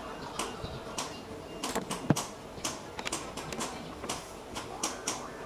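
Irregular clicks and light knocks of small parts and hand tools being handled during a clutch booster rebuild, with one sharper knock about two seconds in.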